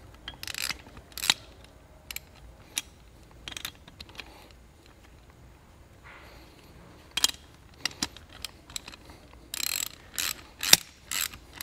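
A socket ratchet and wrench tightening nuts and bolts on steel bracket plates: irregular ratchet clicks and metal clinks, with a few louder clanks near the end.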